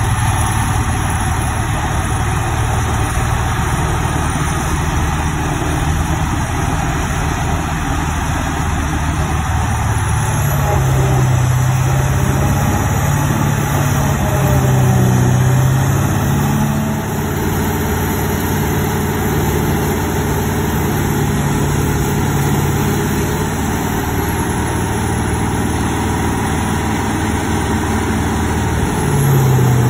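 Diesel engine of a 1985 Jones tub grinder running steadily under load as the machine grinds hay bales. Its note shifts a few times, around the middle and again near the end.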